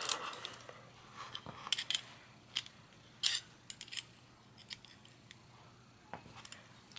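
Light, scattered metallic clicks and small scrapes of a reflector's bracket, screws and little nuts being fitted by hand onto the metal cage of an Atom 440 bicycle pedal, the loudest click about three seconds in.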